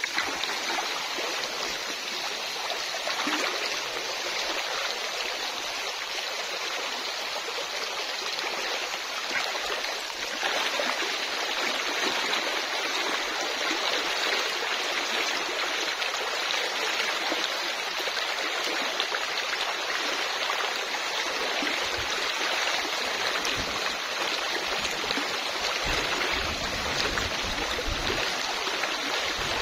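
Shallow river flowing steadily, a continuous rushing of moving water that grows a little louder about ten seconds in.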